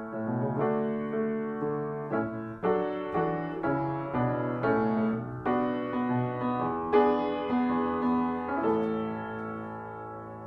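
Background music: a slow piano piece, a string of struck notes and chords that ends on a long held chord dying away near the end.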